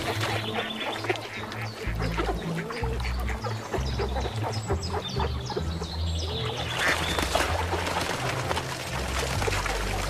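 Courting mallards quacking and calling in quick, irregular bursts, over background music with a low, steady bass.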